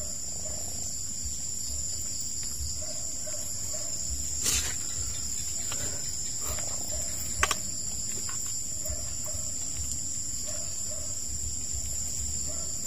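Crickets trilling in a steady, continuous high-pitched chorus, with two sharp clicks about four and a half and seven and a half seconds in.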